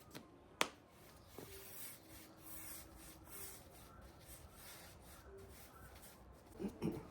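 Repeated scratchy rubbing strokes on a wooden board, with a sharp click about half a second in.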